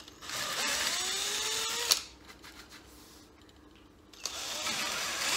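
Ozito cordless drill enlarging a hole in the wooden side of a seat box to 8 mm, in two runs. The first run lasts about a second and a half, and the second starts about four seconds in. The motor whine rises in pitch as it spins up, and the first run cuts off suddenly.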